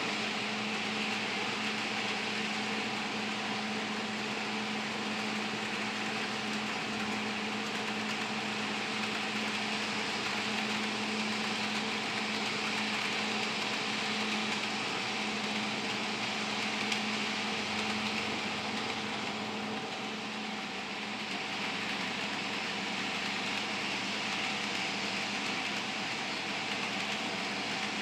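HO scale model train running on the layout: the steady whir of a Life-Like Proto 1000 NW-2 switcher's electric motor, with its wheels rolling on the rails.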